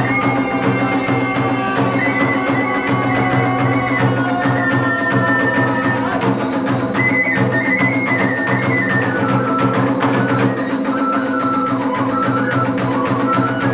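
Iwami kagura hayashi: a bamboo flute plays a stepping melody over a steady beat of drums and percussion.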